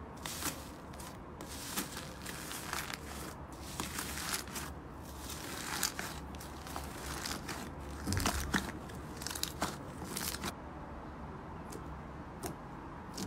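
Foam-bead slime (floam) pressed and kneaded by hand, giving dense, irregular crackling and crunchy popping. Near the end the sounds thin out to a few soft clicks as white fluffy slime is stretched.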